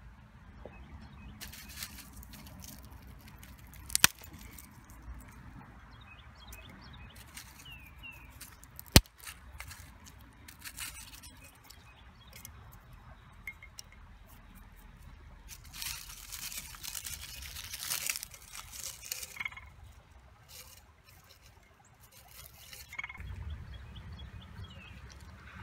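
Rustling and scraping of dry leaves and gritty soil being handled and gathered by hand, with two sharp clicks, one about four seconds in and one about nine seconds in, and a denser stretch of rustling in the second half.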